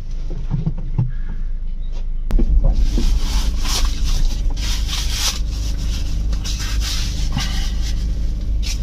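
Rubber gorilla mask with fake fur rustling and rubbing as it is pulled on over the head and adjusted by hand, in irregular scrapes, over a steady low rumble in the car cabin.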